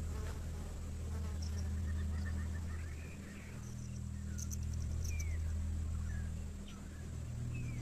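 Outdoor ambience of insects buzzing and clicking, with a few short chirps over a low steady drone. The drone shifts in pitch about halfway through and again near the end.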